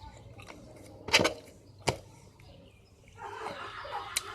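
A few sharp clicks, two of them about a second and two seconds in, then a soft rustling handling noise near the end.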